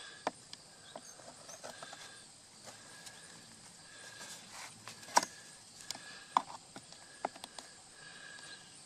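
Scattered small clicks and taps of a small screwdriver prying a plastic power seat switch out of its seat trim panel, working against its plastic retaining tabs. The sharpest click comes about five seconds in, with a run of lighter ones about a second later.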